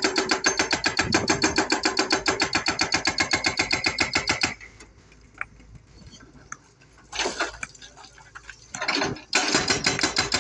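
Excavator-mounted hydraulic rock breaker hammering rock in rapid, even blows. It stops about four and a half seconds in, leaving a quieter stretch with a few knocks, then starts hammering again near the end.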